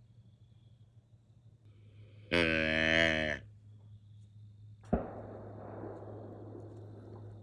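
Imitated whitetail deer calls: first a deep buzzing grunt about a second long, then a sharp snort followed by a long breathy wheeze, an attempt at a buck's snort-wheeze that comes out terrible. A low steady hum runs underneath.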